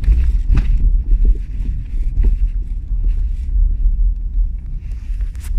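Road rumble inside a moving Opel Astra, with a few sharp knocks from the rear end over small bumps: a clunk whose cause the owner does not know.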